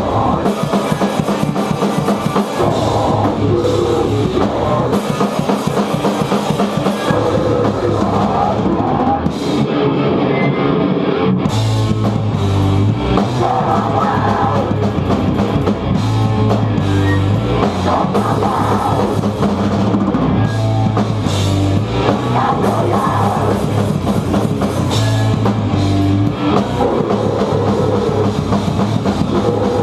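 Rock music from a band with drum kit and guitar, in a heavy, metal-leaning style. The bass and kick drum come in heavier about a third of the way in.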